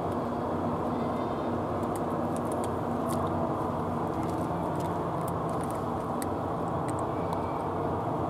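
Steady low hum of a running engine, with scattered small crisp clicks of cats crunching dry cat food.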